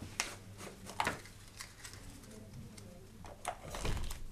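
Sporadic light clicks and small rattles from a plastic draw ball being opened and a paper slip handled, over a faint steady room hum.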